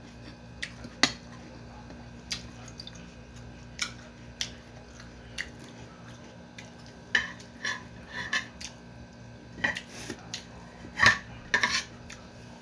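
Spoon clinking and scraping against a plate of rice in scattered sharp clicks, sparse at first and busier in the second half, the loudest near the end.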